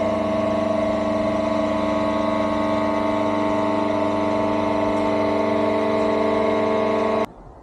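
Electric hydraulic pump motor of a motorcycle lift table running with a steady hum, then cutting off abruptly near the end.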